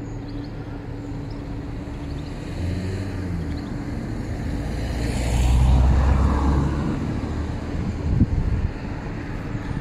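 A road vehicle passing, its engine and tyre noise swelling to a peak about six seconds in and then fading, over a steady low hum.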